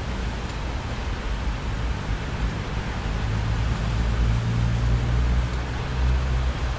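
Steady rain hiss with low thunder rumbling underneath; the rumble swells about three seconds in and eases near the end.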